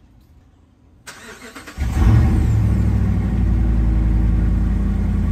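Ram pickup truck's engine starting about two seconds in and then running at a steady low idle, after a second or so of faint hiss.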